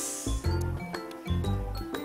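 Background music: a light, plucked-string tune with a steady bass beat.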